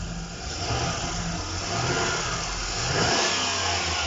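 GMC Savana van engine revved up and easing back down, running smoothly without misfiring now that its weak injector supply wire has been bypassed.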